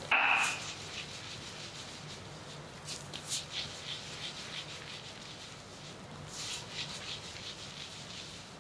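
Hands rubbing and scrubbing shampoo lather through hair on the scalp, soft scratchy rubbing strokes coming in spells, over a faint low steady hum. A brief louder noise just after the start.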